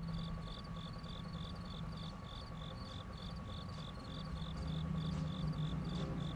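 Crickets chirping steadily, about three chirps a second, over a low steady hum.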